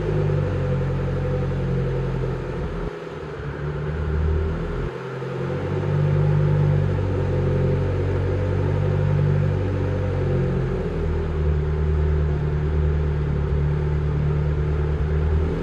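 Mitsubishi Lancer Evo X's built 2.4-litre 4B11T turbocharged four-cylinder running at idle: a steady, deep exhaust rumble that dips briefly twice, about three and five seconds in.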